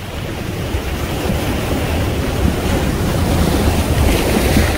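Wind rumbling and buffeting on the microphone, building up over the seconds, with a rushing, water-like noise.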